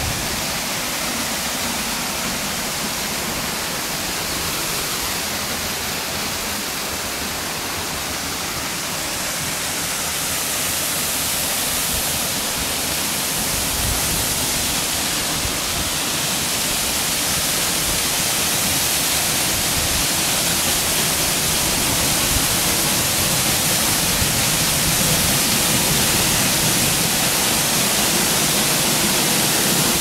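Steady rush of a mountain stream and small waterfall, growing gradually louder from about a third of the way in as the falls come close.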